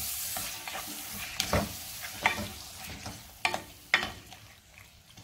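Liver pieces and sliced onion sizzling in hot oil in a nonstick pot while a spatula stirs them, with several sharp clicks of the spatula against the pot. The sizzling dies down toward the end.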